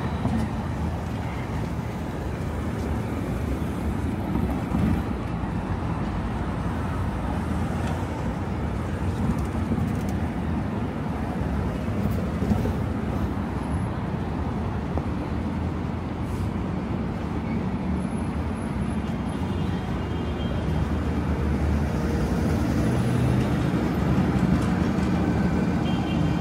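Road traffic: a steady hum of passing cars and engines, growing a little louder near the end.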